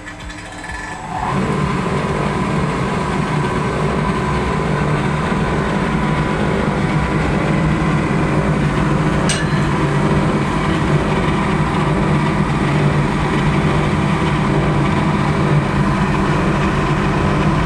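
Electric air blower of an oil-fired brass-melting furnace starting up about a second in and then running steadily, a loud even drone with a faint high tone on top.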